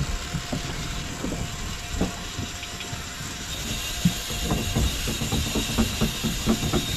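Fishing reel being cranked against a hooked tuna, a rapid run of clicks from the reel's gears that quickens about halfway through, over the steady low rumble of the boat's engine.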